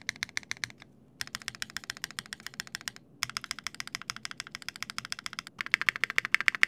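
Fast runs of keystrokes on a custom mechanical keyboard in a machined aluminium housing (Geonworks Raw ZERO), with brief pauses about a second in and about three seconds in. The builder hears the typing as too hollow-sounding in the spacebar area.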